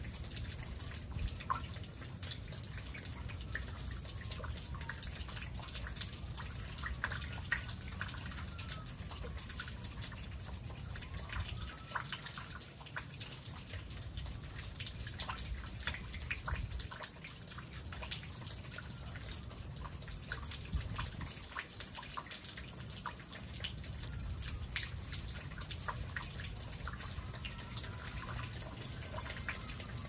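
Ice melting off the eaves and trees in a thaw, dripping steadily: many irregular drips and splats landing close by, over a steady low rumble. Faint rising and falling whistles come and go a few times.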